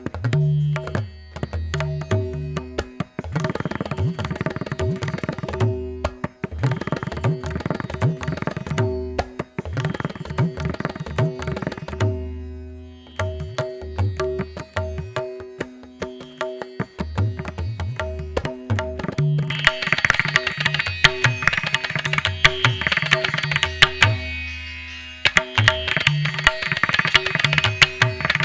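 A music track played back through Nothing Ear (2) earbuds: hand-drum percussion with quick strikes and deep low hits over a steady held drone, getting brighter and busier from about two-thirds of the way in.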